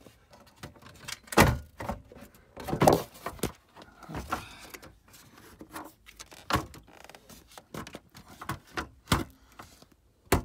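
A plastic lower dash panel being handled and pushed into place under a car's dashboard: irregular knocks, clicks and rubbing. It is loudest in two heavy knocks in the first three seconds, then scattered sharp clicks.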